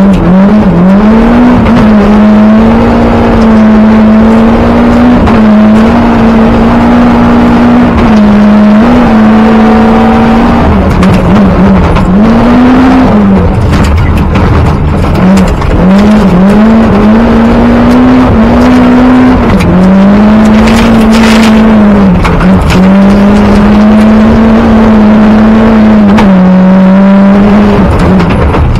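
Group A rally car engine at full throttle, heard from inside the cockpit: the engine note holds high, then drops and climbs again again and again with gear changes and lifts, over a constant rush of tyre and gravel noise. A brief loud burst of noise comes about two-thirds of the way through.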